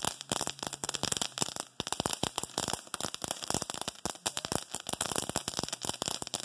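Ground firework burning on pavement, crackling with a rapid, irregular stream of sharp pops.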